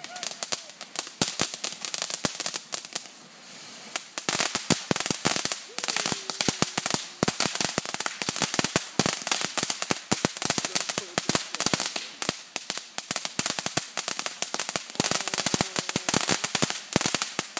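Ground fountain firework hissing as it sprays sparks, with rapid, dense crackling pops. The crackle thins to a hiss for about a second around three seconds in, then comes back thick.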